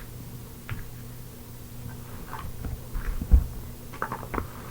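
Small toys being handled and picked through: scattered light taps and rustles, with one low thump about three seconds in, over a faint steady hum.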